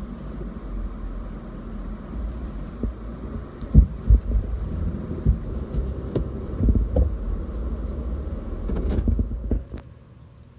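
Toyota 4Runner TRD Off-Road's 4.0-litre V6 pulling under load up a steep dirt climb, heard from inside the cabin as a steady low rumble. There are loud knocks and thumps from the body and suspension over the rough ground, the loudest about four seconds in. The rumble cuts off abruptly near the end.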